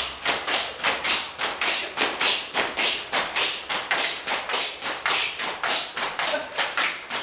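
A group of dancers stamping and shuffling their feet in unison on a tiled floor, in an even rhythm of about three steps a second.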